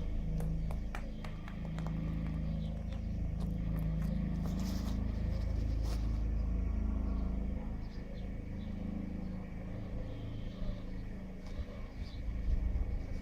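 A low, steady rumble that starts suddenly and eases about eight seconds in.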